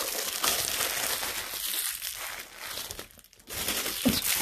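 Plastic wrapping crinkling as an item is pulled out of it, with a short lull about three seconds in, then more crinkling and a low bump or two near the end.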